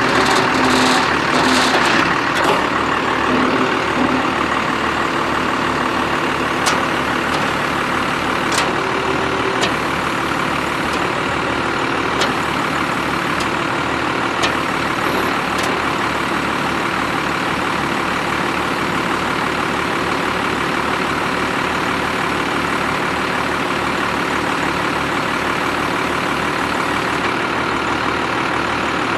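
Cummins 5.9-litre straight-six diesel of a 1997 Dodge Ram 3500 idling steadily, with a few light clicks in the first half.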